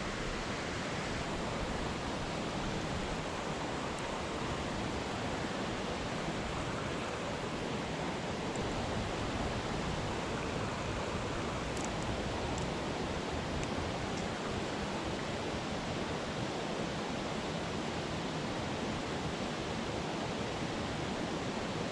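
Creek water rushing steadily over rocks, an even, unbroken hiss.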